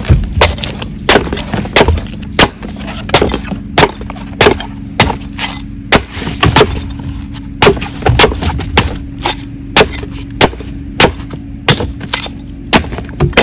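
Steel cleaver chopping the fibrous husk of a green coconut against a wooden board, a sharp chop about twice a second as the husk is trimmed away.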